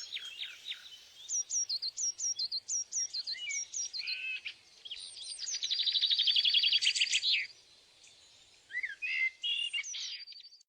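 Songbird singing: a rapid trill, then a run of short, sharp notes that fall in pitch, a second rapid trill about five seconds in, and scattered chirps near the end.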